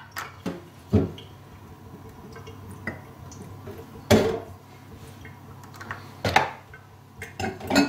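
Glassware being handled at a steel sink: a few separate clinks and knocks as a glass and a small dropper vial are picked up and set down, the loudest about four and six seconds in.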